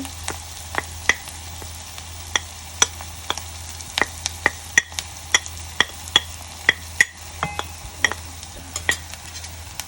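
Onions and flour frying in butter in a pan, a steady sizzle, with a utensil clicking sharply against the pan about twice a second as the flour is stirred in to start a roux for white sauce.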